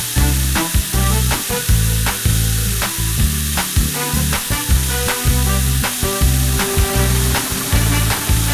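Background music with a steady beat, about two beats a second, over a constant hissing noise.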